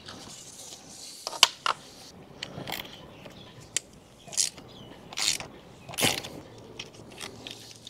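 A hand wrench turning a bolt on a motorcycle's radiator side panel, with metal tool clicks. There are two sharp clicks about a second and a half in, another near the four-second mark, and several short rasping ratchet bursts as the tool is turned.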